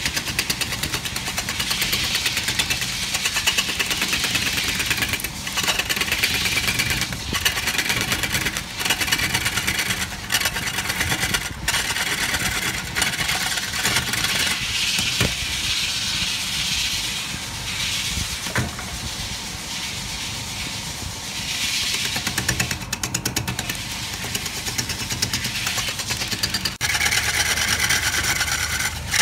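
Wood lathe spinning a log blank while a hand-held gouge cuts into it: a steady rough cutting noise over the motor hum, with rapid fine chatter as the tool bites the turning wood. About 27 s in it suddenly gets louder as the cut moves to a bark-covered log.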